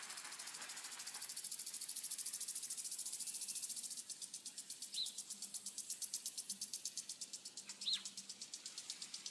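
Insects chirping in a fast, even, high-pitched pulse, with two short high chirps about five and eight seconds in.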